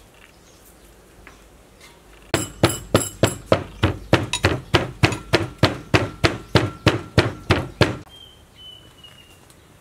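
Wooden pestle pounding in a clay mortar, a steady run of knocks about three and a half a second that starts about two seconds in and stops about two seconds before the end.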